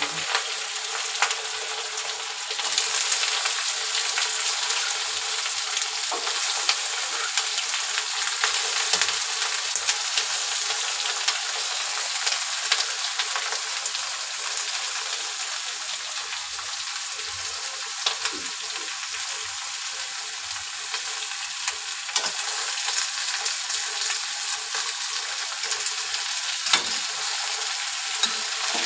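Chopped onions sizzling steadily in hot oil in a steel kadhai, stirred with a metal spatula that clinks and scrapes against the pan now and then.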